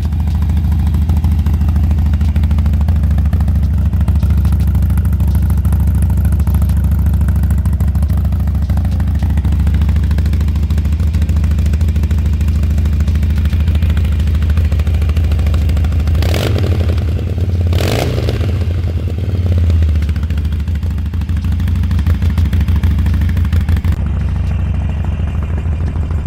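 Harley-Davidson Sportster 883 Ironhead's air-cooled V-twin running steadily at idle, with two short blips of the throttle about two-thirds of the way through. The engine starts and runs and sounds quite nice.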